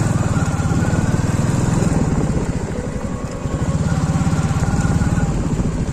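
Motorcycle engine pulling hard up a steep off-road climb. It eases off briefly about halfway through, then picks up again.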